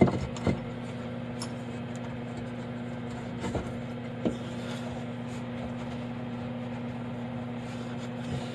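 Steady low machine hum, with a few light knocks as the machined part is handled and set onto the fixture's dowel pins.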